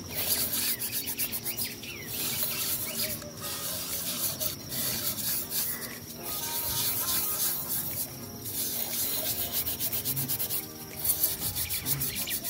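Hand scrubbing the inside of a glass lantern chimney with wood ash, scouring off soot: a gritty rubbing in quick back-and-forth strokes, broken by a few short pauses.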